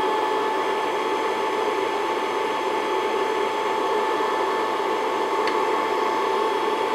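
Stand mixer motor running steadily at medium-high speed with a steady whine, its whisk attachment beating egg whites into meringue. A faint click about five and a half seconds in.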